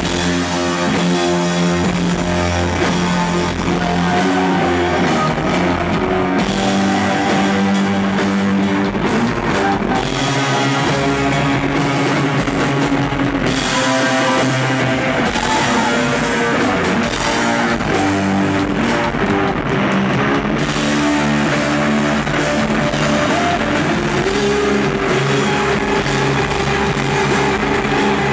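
Rock band playing live and loud: electric guitar and bass with a drum kit in a heavy noise-rock passage.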